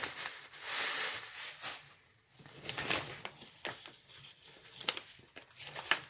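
Wig packaging being opened by hand: irregular rustling and crinkling, with a few sharp clicks and snaps later on.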